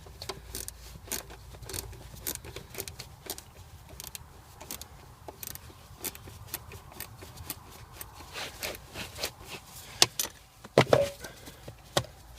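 Hand tool working a 10 mm bolt on the gear select cable plate: a string of irregular small metallic clicks and clinks, with a few louder knocks about ten and eleven seconds in.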